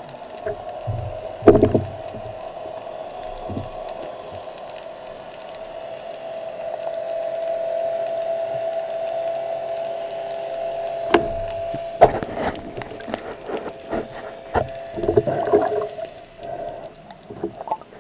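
Underwater sound at a diver's camera: a steady humming tone, loudest around the middle, that stops about twelve seconds in. A few sharp clicks come early, then a busy run of clicks and knocks fills the last six seconds.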